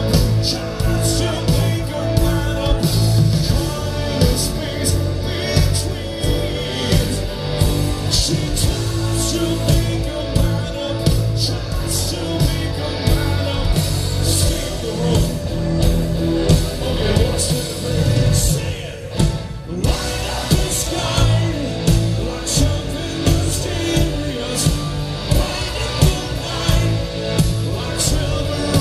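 Live rock band playing through a festival PA, with drums keeping a steady beat under bass and guitar, and a singer's voice over the band.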